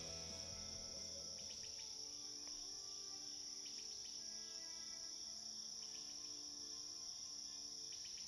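A faint, steady, high-pitched insect chorus, with soft sustained music notes fading out beneath it.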